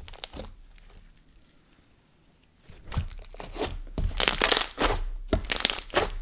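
Thick and glossy slime being kneaded and folded by hand, trapped air pockets crackling and popping in dense clusters. A few pops at the start, a quieter second or two, then steady crackling from about three seconds in, loudest around the middle.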